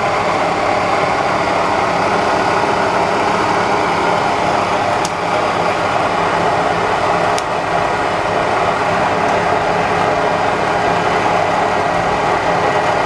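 2 hp Bridgeport Series II Special milling machine running steadily, with its servo power feed driving the table. Two sharp clicks come about five and seven and a half seconds in.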